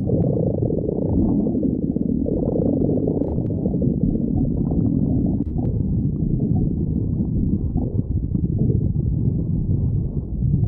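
Human stomach growling: a continuous low, gurgling rumble whose pitch keeps shifting.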